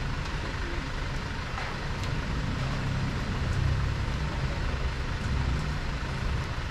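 A steady low engine rumble that swells louder in the middle, with a few light clicks.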